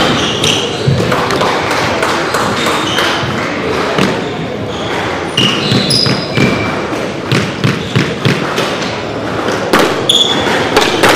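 Squash rally: irregular sharp knocks of the ball off rackets, walls and floor, with short high squeaks of shoes on the wooden court floor.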